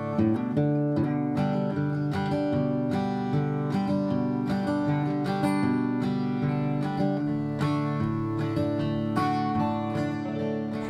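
Acoustic guitar music with strummed and plucked chords, fading in at the start.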